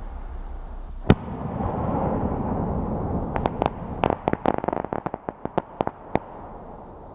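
Fireworks going off: one sharp bang, then a rushing hiss for a couple of seconds, then a rapid string of about fifteen sharp crackling pops over roughly three seconds that thins out and fades.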